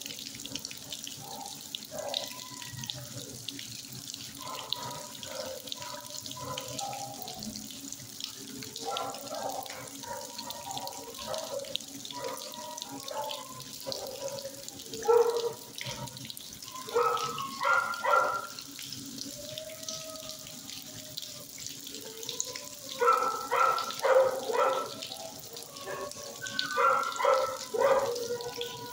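Dogs barking and whining in a shelter kennel in short echoing bouts, over a steady rush like running water.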